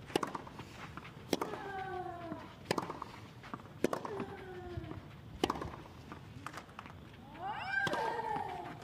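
Tennis ball struck back and forth in a clay-court rally, about one sharp racket hit every second and a half. Several hits carry a player's short grunt that falls in pitch, with a longer cry near the end.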